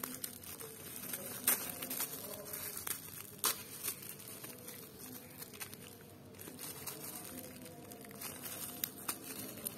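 Black bubble wrap crinkling and crackling as it is unwrapped by hand, with adhesive tape being peeled off it. There are a few sharp crackles, the loudest about one and a half seconds in and again about two seconds later.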